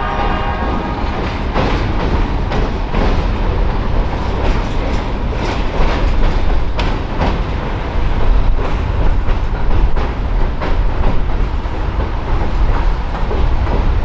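Freight train's covered hopper cars rolling across a steel girder bridge: a steady rumble with irregular clacks and clicks from the wheels on the rail joints, as the last cars pass.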